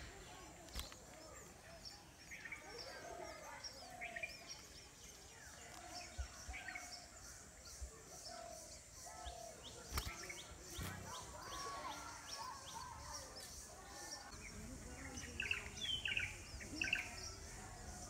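Common tailorbirds chirping at the nest: many short, thin, high chirps. A run of louder, sharper chirps comes near the end, while the adult is at the nest feeding the gaping nestlings.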